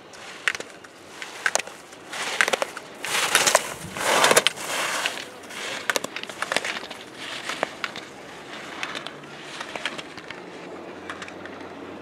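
Slalom skis scraping and hissing across spring snow in swelling turns, loudest about three to five seconds in, with sharp clacks of gate poles being struck.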